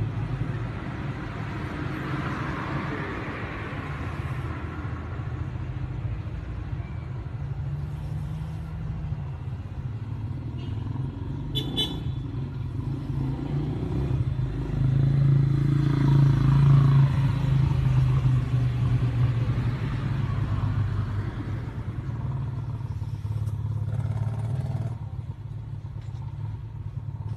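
A motor vehicle engine running with a steady low rumble that grows louder for a few seconds past the middle. There is one brief sharp sound about halfway through.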